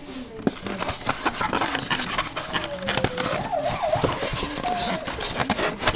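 A dog whining in a wavering pitch for a few seconds, over a busy clatter of clicks and noise.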